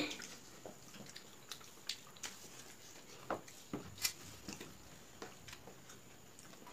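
Wet eating sounds: chewing and squishing of rice and egg curry as it is mixed by hand and eaten, in irregular short smacks and clicks.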